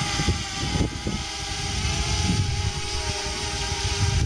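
DJI Mini quadcopter drone hovering close by: its four propellers give a screechy whine made of several near-steady tones that waver and beat against each other, the interference between the propellers. An uneven low rumble runs underneath.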